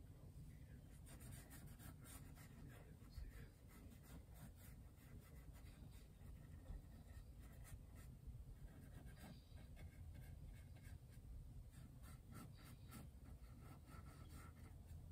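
Faint scratching of a small paintbrush stroking and dabbing paint onto a canvas panel, in many short strokes, over a low steady room hum.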